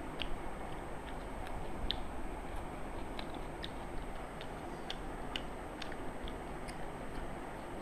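Eating by hand from brass plates: scattered small clicks and ticks at irregular intervals, from chewing and from fingers working food on the metal plates, over a steady background hiss.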